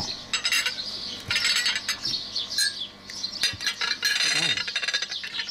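Metal cutlery clinking and scraping on plates as people eat at a table, in a string of short sharp clicks with denser clattering about a second and a half in and again about four seconds in.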